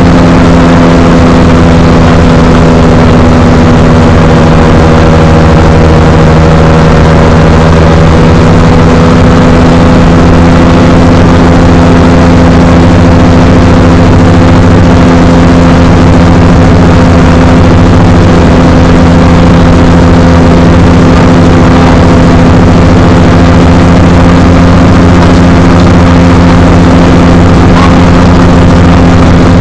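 X-Air microlight's engine and propeller running steadily and very loud, close to the microphone, with a slight dip and recovery in pitch a few seconds in.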